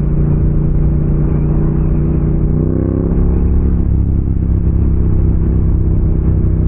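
Motorcycle engine running steadily. About three seconds in, its pitch drops and then holds steady at a lower note.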